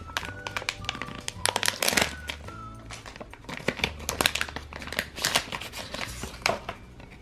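Foil blind bag crinkling and crackling as it is handled and opened, with quiet background music.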